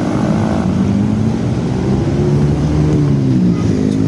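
A road vehicle's engine running close by, its pitch slowly rising and falling as it changes speed, over street traffic noise.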